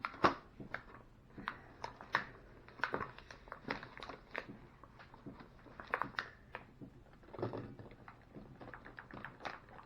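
Irregular light clicks, taps and crinkling, the sound of food and its packaging being handled and set out in a small kitchen.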